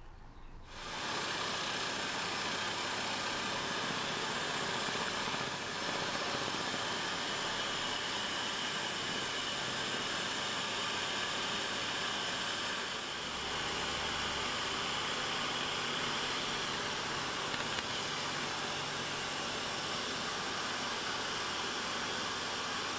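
Hegner scroll saw running with a vacuum hose drawing dust from its side, a steady, even hissing rush that starts about a second in and dips briefly twice.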